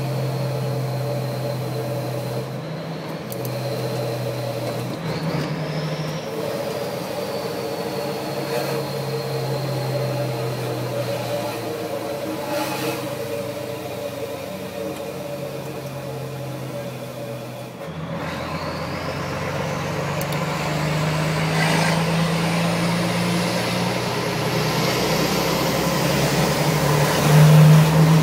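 Truck diesel engine running with its turbocharger whistling. The whistle holds a steady pitch at first, then about two-thirds of the way through the engine picks up and the turbo whistle rises steadily higher and louder.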